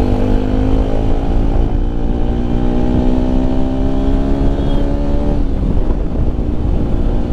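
Bajaj Pulsar RS 200's single-cylinder engine on its stock exhaust, pulling under throttle with its pitch rising slowly for about five seconds, then dropping off. Low wind rumble runs underneath.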